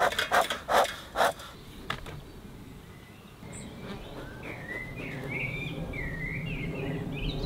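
A bee smoker's bellows puffs out a quick run of short bursts of air and smoke in the first second or so. From about halfway, honeybees buzz steadily around the hive and grow gradually louder, with birds twittering above them.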